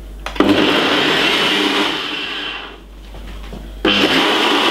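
Ninja blender motor running at speed, blending a green smoothie of spinach, apple, ginger and water. It dies down about three seconds in and starts up again loudly near the end.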